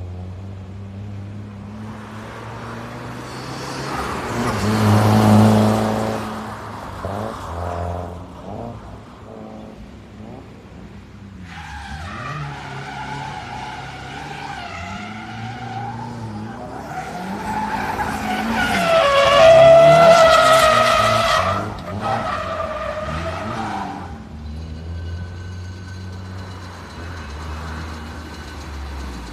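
Nissan S15 Silvia's SR20 four-cylinder engine revving up and down during a drift, with the tyres squealing in long wavering tones. It is loudest about five seconds in and again around twenty seconds in.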